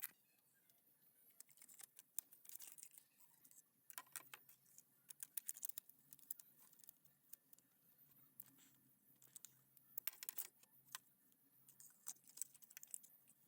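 Faint, irregular small clicks and light scrapes of hand work on ignition coil connector sockets and pins, in scattered clusters over near silence.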